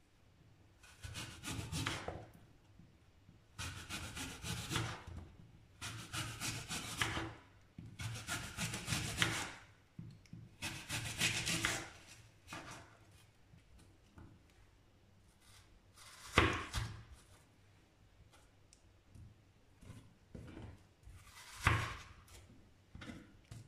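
Small knife sawing through a whole apple onto a wooden cutting board, about five slicing strokes each lasting a second or more. Later come two sharp knocks, the loudest sounds.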